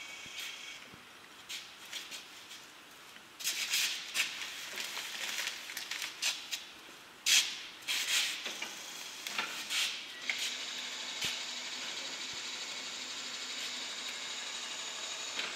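Rustling and rattling of a filled sack as it is shifted and slid from a bag-lifting truck's platform onto a stacked pile of sacks, in irregular loud bursts. A steady hiss takes over for the last few seconds.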